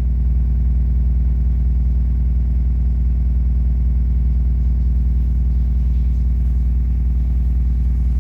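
MTX subwoofer, driven by a monoblock amplifier at 2 ohms, playing a loud, steady deep bass tone.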